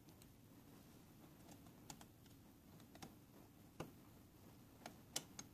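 A few faint plastic clicks and taps as a plug is pushed into a wall receptacle, the sharpest near the end.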